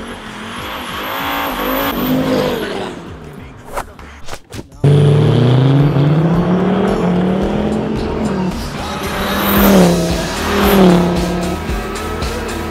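Mercedes OM605 five-cylinder turbodiesel engines with big Holset HX40 turbos pulling hard at full throttle. A car approaches and passes in the first three seconds, then about five seconds in the sound cuts abruptly to a loud engine accelerating with its pitch climbing, and it swells again with another pass later on.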